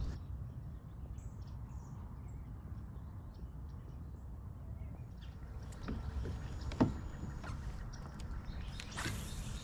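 Quiet outdoor ambience: a low steady rumble with faint high chirps, then a few small knocks and clicks of handling in a plastic fishing kayak, the sharpest about seven seconds in, and a brief rush of noise near the end.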